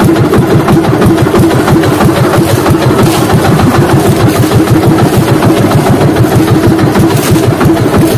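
A fishing boat's engine running loudly and steadily close by.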